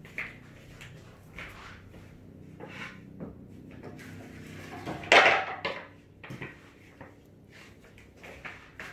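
Scattered knocks and clatters, with one loud clatter about five seconds in, over a faint low steady hum.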